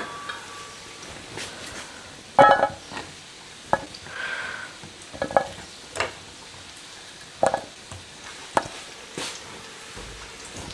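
Bread frying in oil in a hot frying pan, a steady sizzle, with a few sharp clinks and knocks of utensils and plates and a brief squeak about four seconds in.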